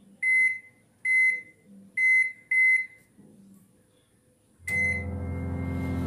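Microwave oven keypad on a Morphy Richards MWO 25CG beeping once per button press, four short beeps in the first three seconds as power level and cooking time are set. A fifth beep comes as Start is pressed, just before the five-second mark, and the oven starts running with a steady hum.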